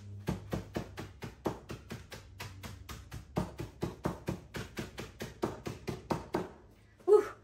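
Saltine crackers in a plastic zip-top bag being crushed with a meat mallet on a wooden board: a rapid, even run of knocks, about five a second, stopping shortly before the end.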